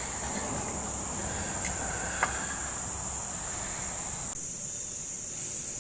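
Crickets trilling steadily at a high pitch, with a single light click about two seconds in.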